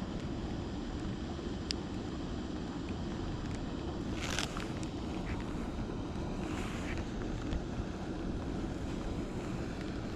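Steady low rumble of wind buffeting the microphone on a boat, with two short hissing bursts about four and a half and seven seconds in.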